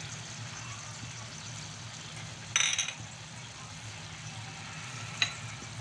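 Pork cubes and onion frying quietly in a pan, with a short ringing clink of a cooking utensil against the pan about two and a half seconds in and a sharp tick near the end.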